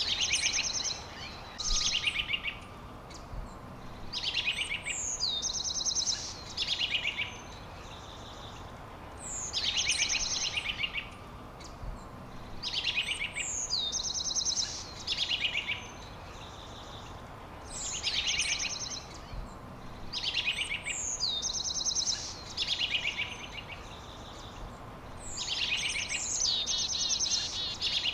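A songbird singing the same short song over and over, about every three to four seconds. Each song is a high whistle sliding down, then fast buzzy trills.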